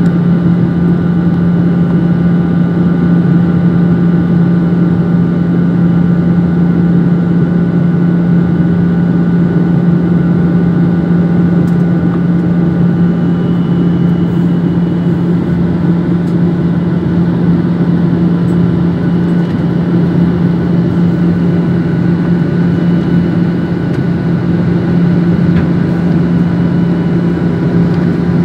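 Cabin noise inside a Boeing 737 airliner in flight: the jet engines and the rushing airflow make a loud, steady low hum under a dense rush of air, with a few fainter steady whines above.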